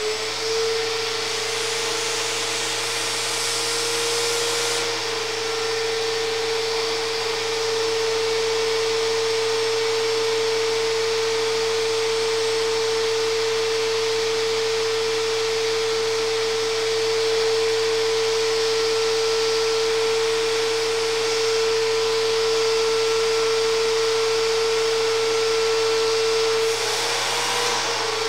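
Vacuum cleaner running steadily with a high motor whine over a rush of air, just switched on and settling to full speed in the first moment. It is drawing a cleaning string through an air rifle barrel. The whine briefly dips and wavers about a second before the end.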